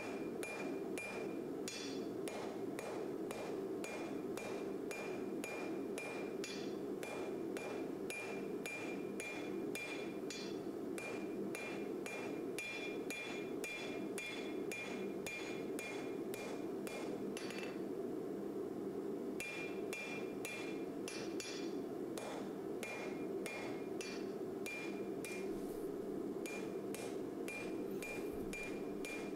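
Hand hammer striking red-hot spring steel on an anvil, about two blows a second with each blow ringing, drawing out the tang of a forged knife. The blows stop for about two seconds past the halfway mark, then resume, over a steady rushing noise.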